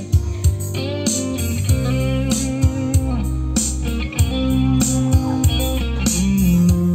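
Music played back through Technics SB-6 floorstanding speakers driven by a Kenwood A-85 amplifier: the instrumental intro of a Mandarin pop song, with guitar lines that bend in pitch over sustained bass and regular drum hits.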